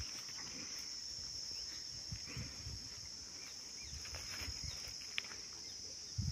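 Steady high-pitched drone of insects in a chorus, with a few faint low thumps underneath.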